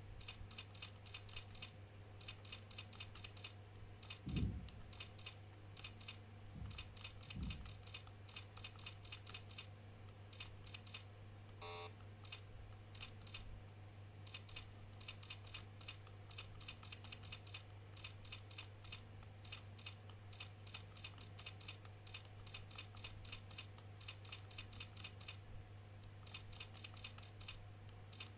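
Computer keyboard being typed on fast: quick runs of keystrokes with short pauses between, as in typing-speed practice, over a steady low hum. A dull thump about four seconds in, two softer ones a few seconds later, and a brief beep near the middle.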